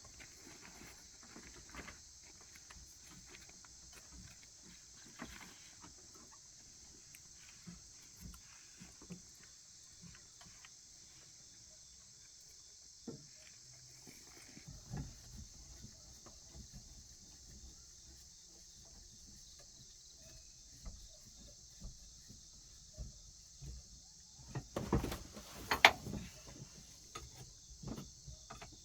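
Crickets or other insects chirring steadily in the background, under scattered knocks and clatter of hands and tools on the machine, with a louder burst of sharp knocks about 25 seconds in.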